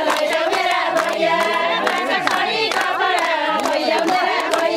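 A group of women singing a Nepali ratyauli wedding folk song together, with hand clapping through it.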